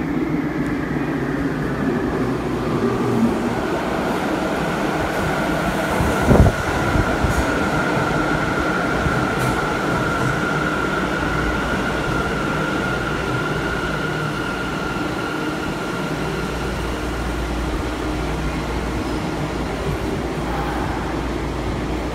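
Sendai Subway Tozai Line 2000 series linear-motor train pulling into an underground station and slowing to a stop. It makes a steady rumble, with a high, even tone that fades out about fifteen seconds in, and a sharp thump about six seconds in.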